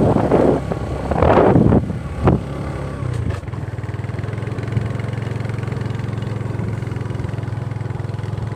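Small engine idling steadily from about three seconds in, after loud rushing noise in the first two seconds.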